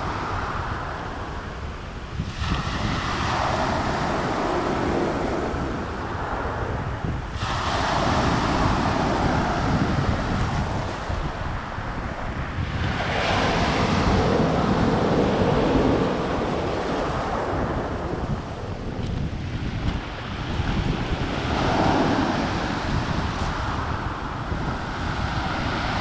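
Small Black Sea waves breaking and washing up a pebble beach, a new surge of surf about every five or six seconds. Wind rumbles on the microphone underneath.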